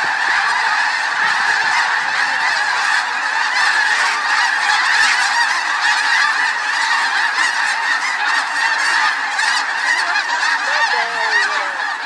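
A huge flock of snow geese taking off and flying overhead, a dense, unbroken chorus of overlapping honking calls.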